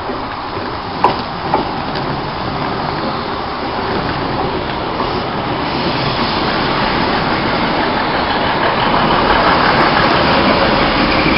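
Class 156 diesel multiple unit pulling into the platform and passing close by. Its wheels rumble on the rails and grow steadily louder as the coaches go by, with two sharp clacks about a second and a half in.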